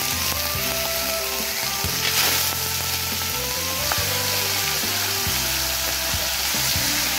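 Marinated chicken pieces sizzling as they are tipped from a steel bowl onto a large hot, oiled tava, with a steady frying hiss that swells louder about two seconds in as more pieces land.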